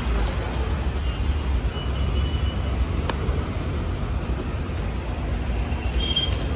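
Steady low rumble of street traffic, with a short faint high tone about two seconds in and a single sharp click about three seconds in.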